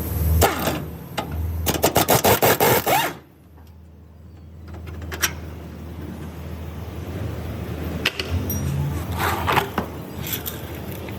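Hand-tool work on a car's suspension while a shock absorber is fitted: a quick run of sharp metal strikes, about five a second, then a low steady hum with a few scattered clicks and knocks.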